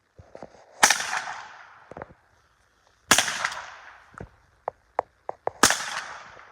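Three single shots from a Marlin semi-automatic .22 rifle, a couple of seconds apart, each crack followed by a fading echo. Fainter sharp clicks fall between the shots.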